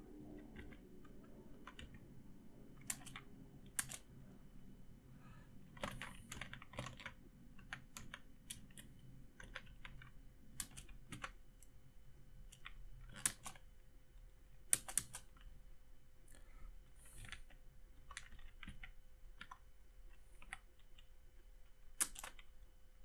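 Computer keyboard being typed on in irregular short runs of keystrokes, with a few sharper, louder clicks, over a faint steady hum.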